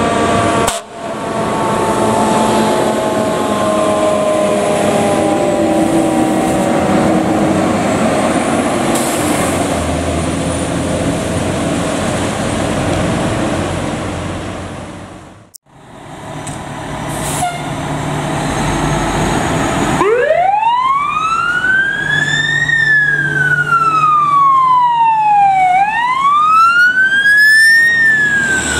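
Fire truck sirens on responding apparatus, with engine and road noise. First a siren tone slowly dropping in pitch, then, after a cut, a siren wail sweeping up, down and up again in long slow sweeps, louder than the rest.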